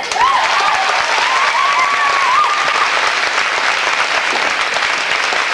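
Large audience applauding steadily, with a voice cheering over it for the first few seconds.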